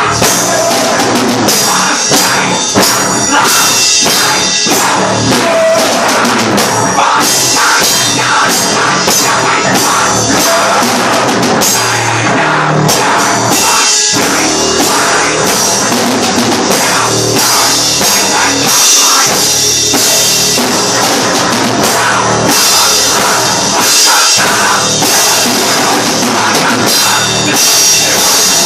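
Rock band playing a loud, heavy song, with a drum kit driving it along.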